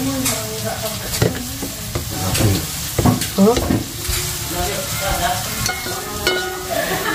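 Hot wok sizzling, with the scrape and clink of a metal spatula, as fried fish and its garlic-and-chilli sauce are tipped out onto a plate. Short knocks and clicks come all through over the steady sizzle.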